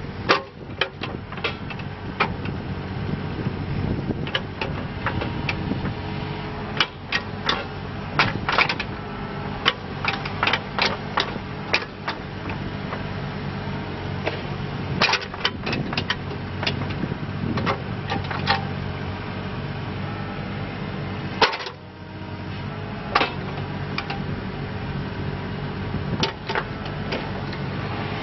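Wacker Neuson 28Z3 mini excavator's diesel engine running steadily as the boom and bucket are worked, with frequent sharp clanks and knocks from the moving arm and bucket.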